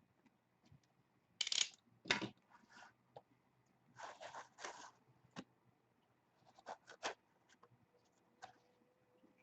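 Trading-card packaging being handled and opened: a few short scraping, rustling noises, then a couple of light clicks.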